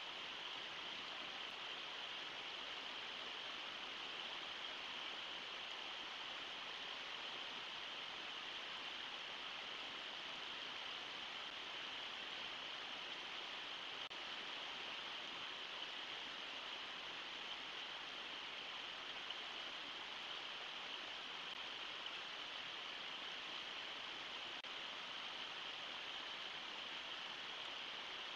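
Steady rush of river water pouring over a low waterfall and through shallow riffles, an even hiss.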